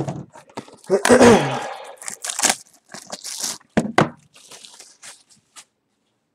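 Foil trading-card pack wrapper being torn open and crinkled, then the card stack handled, with a few clicks; loudest about a second in, and the sound cuts off suddenly near the end.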